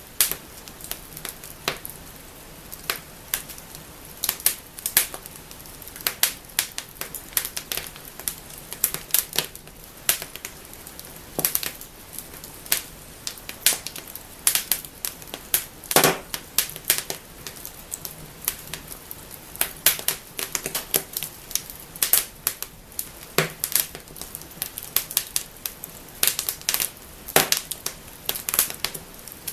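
Wood fire burning in a fireplace, crackling and snapping with irregular sharp pops over a faint steady hiss.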